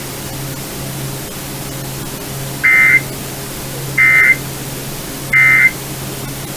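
Emergency Alert System end-of-message (EOM) data bursts: three short, identical bursts of the digital SAME code, about a second and a third apart, that close the alert. They come over a radio, with a steady low hum and hiss underneath.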